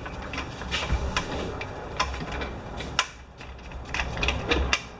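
Scattered hard clicks and knocks of a lawn mower's plastic air cleaner cover being unclipped and taken off. The sharpest click comes about three seconds in.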